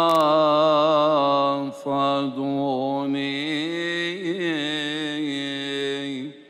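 Solo male cantor chanting a Coptic psalm verse in long melismatic phrases, held notes wavering with ornaments. There are brief breaks about two seconds in, and the voice stops just before the end.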